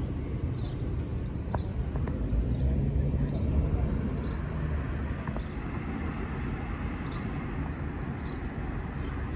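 Steady low city-street rumble, with a short high chirp repeating about once a second.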